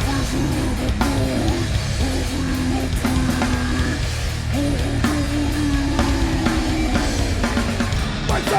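A live rock band playing: a drum kit hitting steadily under guitars, with a held melodic line moving in steps over it.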